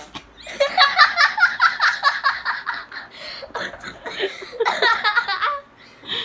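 A person laughing in two bouts of quick, rapid laughs, with a short break about three seconds in. There is a short sharp click at the very start and another near the end.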